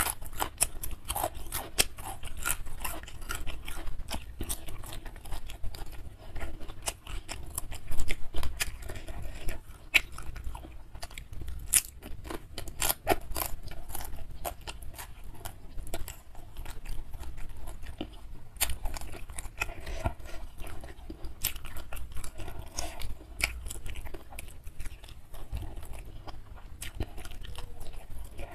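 Close-miked chewing and mouth smacks of a person eating nasi padang (rice with grilled fish) by hand: a dense, irregular run of sharp clicks.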